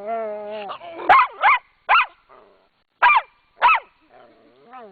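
Small dog growling and snarling, broken by about five sharp, high barks: an angry, provoked dog.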